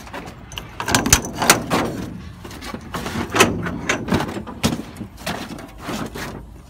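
Irregular metal knocks and clanks from people climbing into the steel basket of an aerial work platform and handling its hinged control-box cover.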